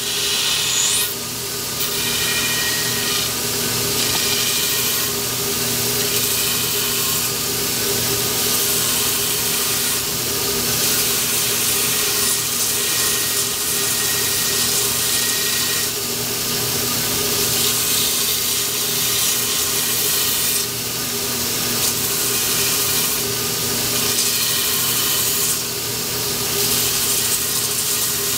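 Power grinder running with a dust collector, grinding dried fiberglass off a wooden longbow tenon to trim it even. A steady motor hum and whine runs under a grinding hiss that swells and fades every few seconds as the piece is pressed to the abrasive and lifted.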